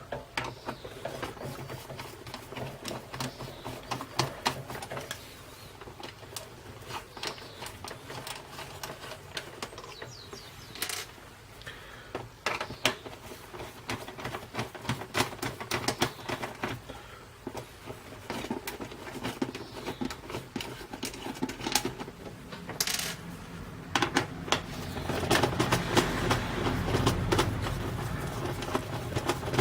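Four small screws being undone by hand with a screwdriver from a small device case, with scattered clicks and light clinks as the screws turn and are set down. The clicking gets busier near the end.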